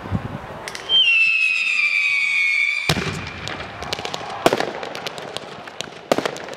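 Fireworks display: about a second in, a loud firework whistle starts and falls slowly in pitch for about two seconds, then cuts off. Dense crackling and pops follow, with a few sharp bangs of bursting shells.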